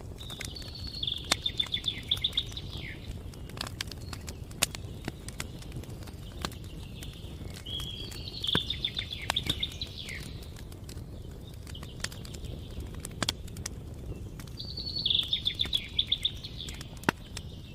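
Wood fire crackling with scattered sharp pops over a steady low rumble, while a songbird sings a short, fast trill three times, about seven seconds apart.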